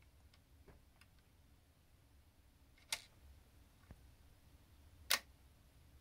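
Ilex No. 5 Universal Synchro leaf shutter firing with two sharp clicks about two seconds apart. Fainter ticks come between them as the shutter is cocked.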